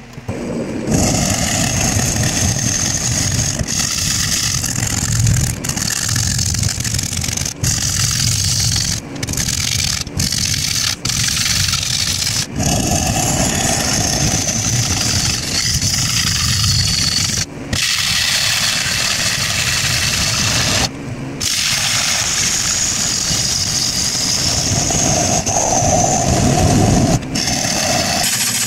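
Turning gouge cutting a spinning blank of spalted gumbo limbo on a wood lathe: a steady, rough shearing of wood over the lathe's running, starting about a second in, with a few brief breaks where the tool comes off the wood.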